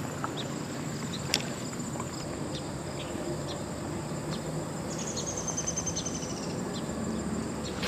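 Insects trilling steadily at a high pitch over a constant rumble of road traffic. There is a single sharp click about a second in, and a short pulsed call, falling slightly in pitch, about five seconds in.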